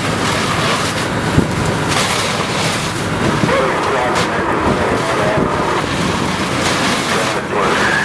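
Steady rushing noise of a firefighting hose stream spraying water onto a burning wooden sawmill building, with a single sharp knock about one and a half seconds in.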